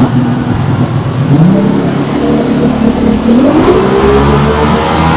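Jet boat engine revving up, its pitch rising in two steps about a second and a half in and again about three and a half seconds in, then running steadily at the higher pitch.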